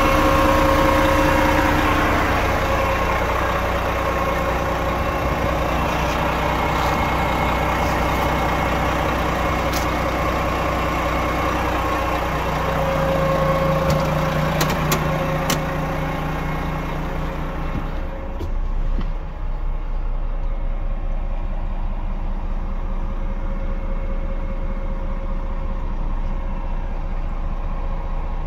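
Volvo FM 420 truck's six-cylinder diesel engine idling steadily. About eighteen seconds in, after a few knocks, the sound turns muffled and low, as heard from inside the closed cab.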